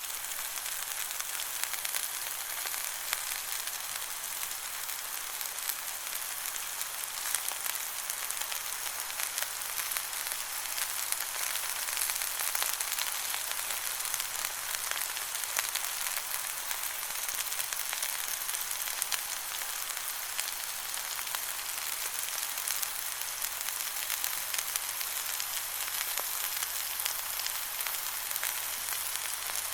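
Steady sizzling of something frying in hot fat: a high hiss with a dense spatter of tiny crackles and pops that keeps on without a break.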